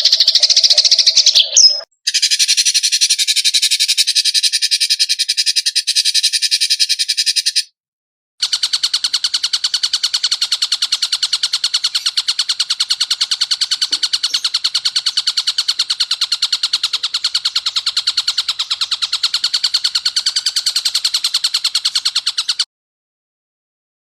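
Edited songbird-training recording of buzzy, rapidly pulsed trills, played as separate clips with abrupt cuts: a high, thin trill for about six seconds, a short silence, then a long, even trill for about fourteen seconds that stops suddenly.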